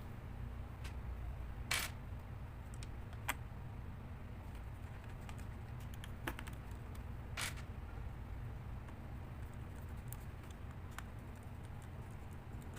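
A few sharp small clicks and a brief scrape of hard plastic and metal parts being handled, as during work inside a laptop, over a steady low hum.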